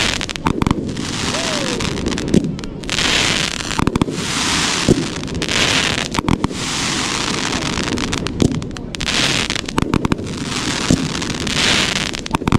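A 1.4G consumer fireworks cake, a crackling mine to crackling spider with red strobe, firing in sequence. Sharp bangs come every second or two, and each is followed by a spell of dense crackling.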